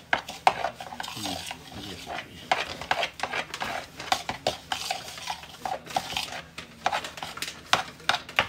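A utensil stirring and scraping against a plastic mixing bowl, working a crumbly pizza dough of rice flour, oil and water, in quick, irregular strokes.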